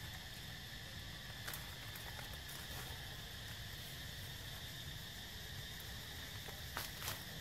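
Steady high insect drone from the surrounding trees, with a few short sharp clicks of twigs and leaves as a monkey climbs through the branches, two of them close together near the end.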